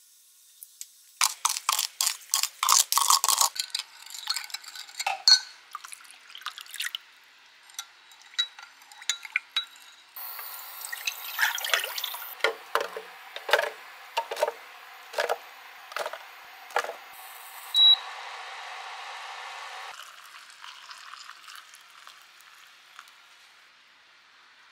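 A metal spoon stirring pickling sauce in a glass measuring jug, clinking quickly against the glass. Then the sauce is poured into a saucepan with a steady trickle and scattered spoon taps, and a single sharp ringing clink near the end of the pour.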